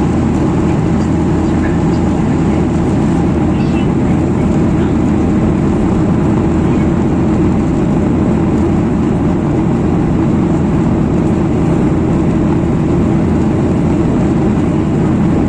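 Steady airliner cabin noise: the jet engines and rushing air, heard from inside the passenger cabin as a loud, even rumble.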